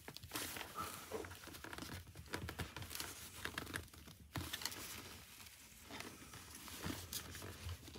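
Rustling and scattered small clicks of plastic and fabric helmet parts being handled and pushed into place while an intercom kit is fitted inside a motorcycle helmet.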